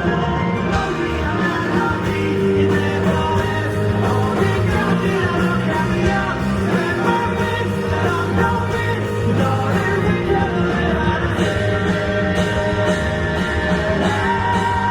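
Live pop-rock band music played loudly, with singing.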